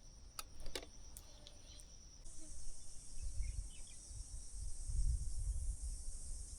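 Steady high-pitched insect drone that grows louder and fuller about two seconds in, over a low rumble, with a couple of faint clicks near the start.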